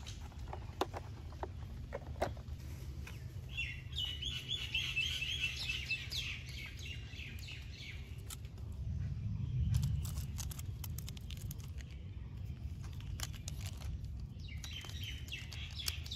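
Small birds chirping in two bouts of rapid high chirps, a few seconds in and again near the end, with scattered light clicks of plastic toys being handled and a low rumble that swells briefly in the middle.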